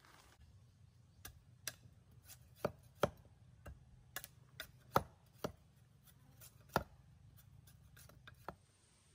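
Machete blade chopping and shaving at a thin upright pole: a string of about a dozen sharp, hard knocks at an irregular pace.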